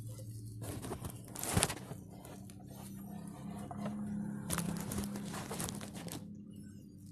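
Scraping and handling noises as a new oil filter is fitted back onto the engine by hand, with one sharp knock about one and a half seconds in.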